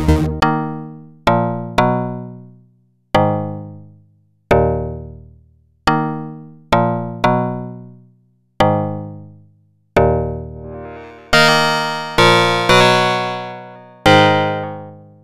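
Ensoniq sampler keyboard playing a dry, effects-free saw-based waveform: about a dozen separate notes or chords, each striking sharply and fading away within a second or two. From about eleven seconds in the tone is much brighter and buzzier.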